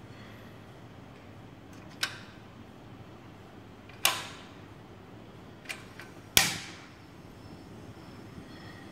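Portable butane gas stove's piezo igniter snapping as the burner is lit: four sharp clicks over about four seconds, each with a brief ring, the loudest about six seconds in.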